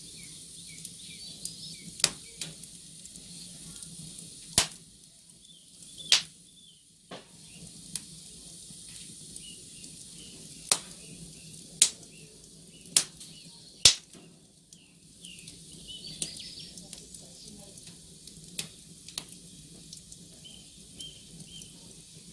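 Fire crackling under a steady hiss, with irregular sharp pops, several of them loud and coming in clusters through the middle.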